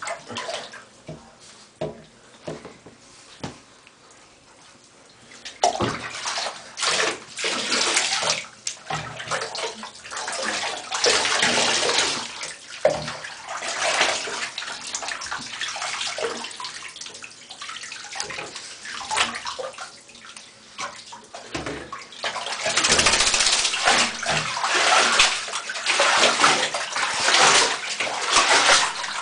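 Bathwater sloshing and splashing in a tub as two Shih Tzu puppies move about in it and are handled, in irregular bursts. Soft for the first five seconds or so, then busier and louder, most of all near the end.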